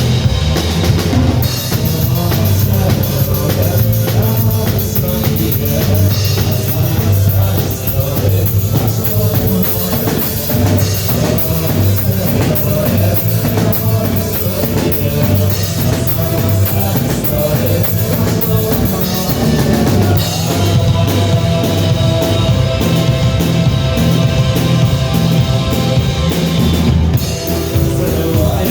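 Rock music with a steady drum-kit beat, bass drum and rimshots.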